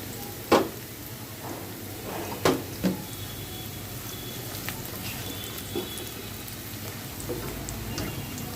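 Chopped onions deep-frying in soybean oil, a steady sizzle as they are browned to crisp beresta. Three sharp knocks stand out: one about half a second in, and two close together about two and a half seconds in.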